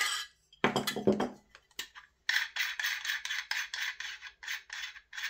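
A sharp metal click and a knock of handling, then a fast run of metal-on-metal scraping strokes, about five a second, as a metal spacer is spun down the outer barrel's long thread.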